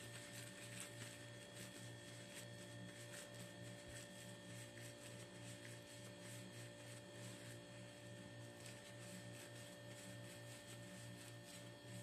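Faint steady electrical hum, with a low drone that throbs evenly and several thin steady tones, under faint scattered ticks.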